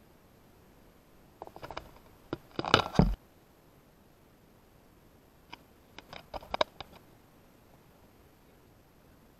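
Handling noise on the camera: two short clusters of clicks and scrapes, the first, about one and a half seconds in, the louder, over a faint steady hiss.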